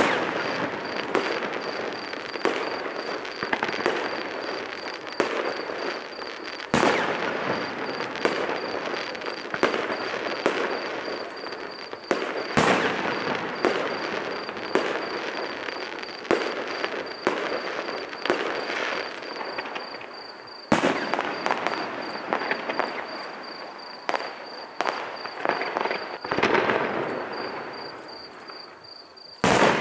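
Fireworks display: a dense, unbroken crackling of many small bursts, with a loud single bang every six to eight seconds.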